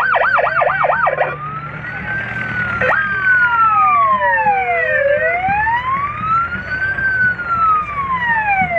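Vehicle siren: a fast warble for about the first second, then a slow wail that sweeps up and down in pitch.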